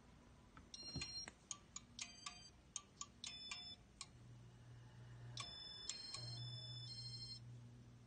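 Ceiling fan motor spinning on test with a faint steady low hum. Over it runs an uneven series of sharp clicks, several of them with high ringing tones, which stops shortly before the end.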